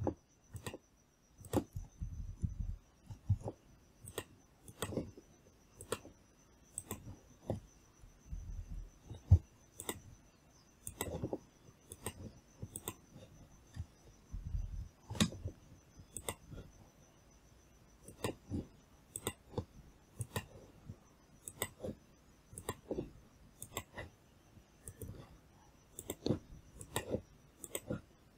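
Computer mouse clicks, sharp and irregular, about one or two a second, with a faint steady high-pitched tone behind them.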